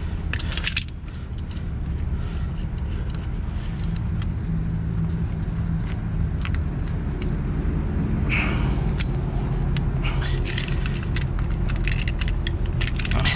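Heavy diesel engine idling steadily, with scattered metallic clicks and clinks from hands working a truck's air-line fittings.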